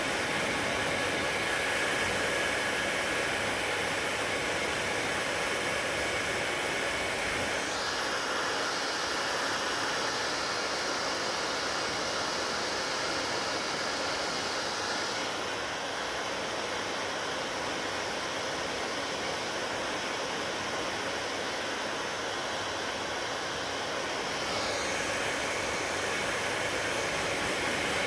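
Hair dryer blowing steadily, a continuous airy hiss whose tone shifts three times: about a quarter of the way in, around the middle, and near the end.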